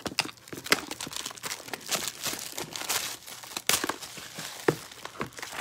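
Plastic shrink wrap being pulled off a cardboard box and crumpled by hand: a dense, irregular crinkling and crackling with a few sharper snaps.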